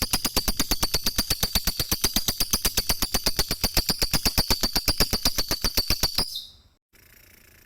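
Lovebird's ngekek: a long, fast chattering trill of about ten notes a second, high-pitched, breaking off about six seconds in.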